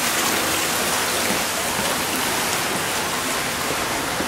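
Water running steadily into an indoor ornamental pond: a constant, even rush of falling water.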